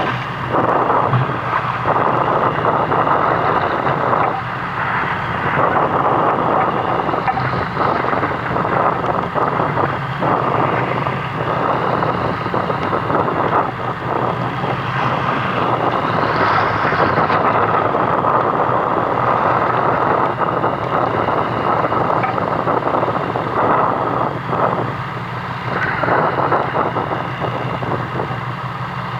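A fishing boat's engine runs with a steady low hum, under loud wind buffeting the microphone that rises and falls in gusts.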